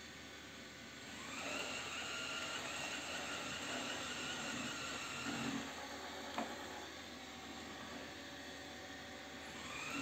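360 S9 robot vacuum cleaner running as it mops the floor: a steady whir with a high motor whine that grows louder about a second in and eases off about seven seconds in. A single click about six seconds in.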